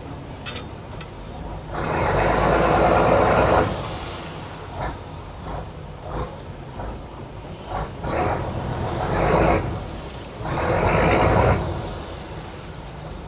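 Fishing boat's inboard engine running, throttled up loudly three times for about two seconds each while manoeuvring to come alongside another vessel, then easing back to a steady run between bursts.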